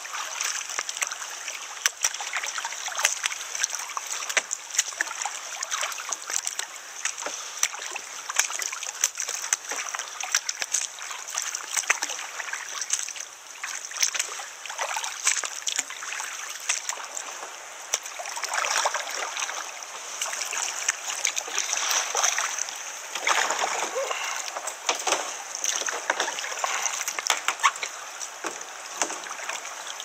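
Double-bladed kayak paddles dipping and pulling through calm river water in repeated strokes, with splashes and water dripping off the blades.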